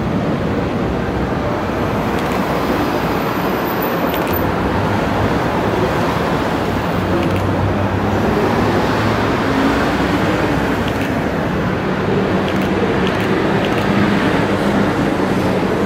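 Steady city road traffic: cars and buses running past, with an engine hum that grows stronger in the second half as a bus passes close by.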